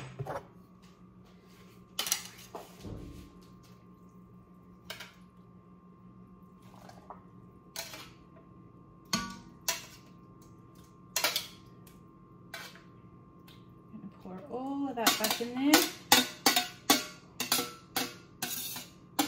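Metal tongs clinking and scraping against a metal roasting pan and a stockpot as chicken bones are transferred: scattered single clinks at first, then a quick run of clanks, several a second, through the last few seconds as the pan is tipped and scraped out. A faint steady hum lies underneath.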